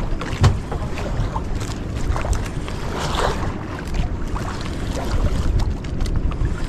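Wind buffeting the microphone and sea water lapping against a small outrigger boat, with scattered light knocks and clicks, one sharper knock about half a second in.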